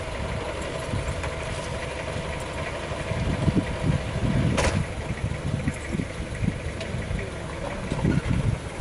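A vehicle engine idling steadily, with one sharp click about four and a half seconds in.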